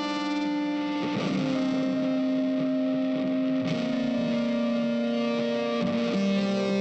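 Background music: a distorted electric guitar holding long notes that change about every two and a half seconds.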